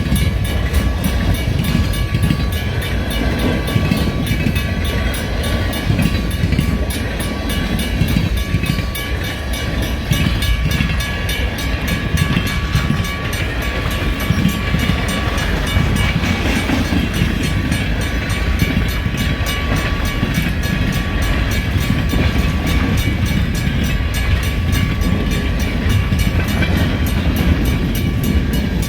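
Freight train rolling through a grade crossing, its wheels rumbling steadily on the rails, while the crossing signal's bell rings in fast, even strokes.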